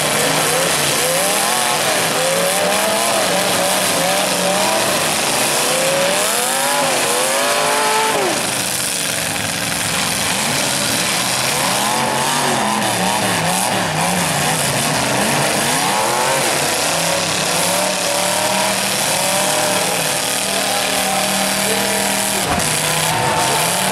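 Several demolition derby cars' engines revving up and down at once, their pitches rising and falling over one another over a loud, steady din.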